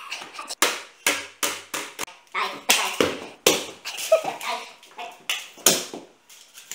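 A man laughing hard in repeated breathy bursts, about two a second.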